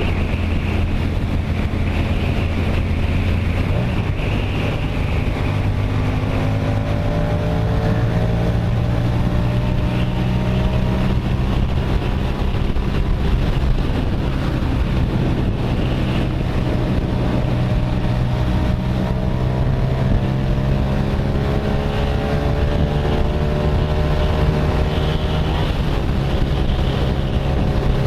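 Kasinski Comet GTR motorcycle's V-twin engine running through its aftermarket exhaust while riding, its pitch rising several times as the throttle opens and through the gears. Wind rush underneath.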